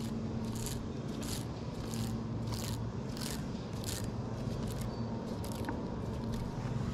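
A KastKing MegaJaws baitcasting reel being cranked to bring in the line, with a rhythmic scratchy stroke about one and a half times a second. A steady low hum runs underneath.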